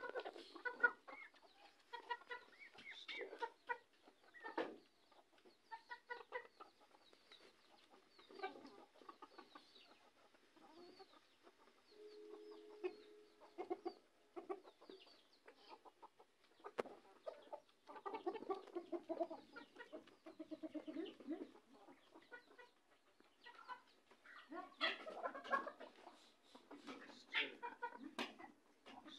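A flock of desi chickens, hens and a rooster, clucking: many short, overlapping clucks that come in bunches and are thickest in the last few seconds.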